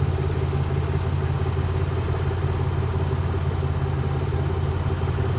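A vehicle engine running steadily, a constant low hum with no change in pitch.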